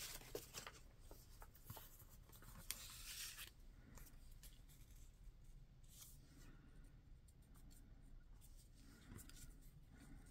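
Faint paper handling: light rustling and a few soft taps and clicks in the first three and a half seconds, then only faint, scattered rustles.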